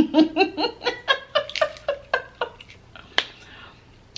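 A woman laughing in a run of short, evenly spaced "ha" pulses that die away after about two and a half seconds, followed by a single sharp click.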